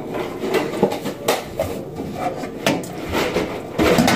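Handling noises at a kitchen counter while icing cookies: rustling, and several light knocks and taps as a paper icing cone and cookies are moved about. The handling gets louder near the end.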